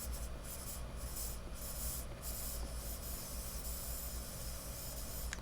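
A person lighting up and smoking: several short airy hisses, then one longer steady hiss of about two and a half seconds that ends in a small click.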